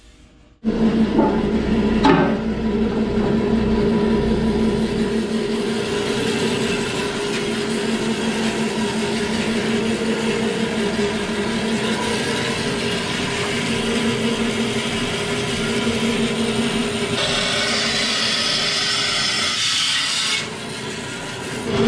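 A vertical wood-cutting band saw running and cutting through an aluminium Honda K24 valve cover: a steady motor hum under the rasp of the blade. The blade runs too fast for metal. The cutting turns harsher and hissier for a few seconds near the end, eases briefly, then picks up again.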